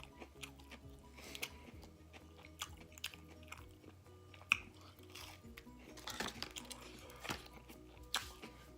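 Close-up chewing of fried fast food, with scattered crunches and wet mouth clicks, the sharpest about halfway through and near the end. Quiet background music with held notes runs underneath.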